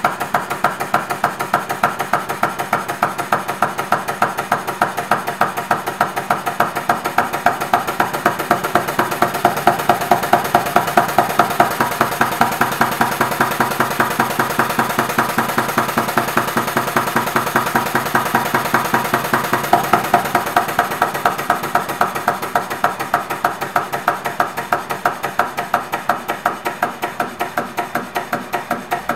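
Stuart model beam engine running fast on compressed air: a rapid, steady, even beat from each stroke of the engine.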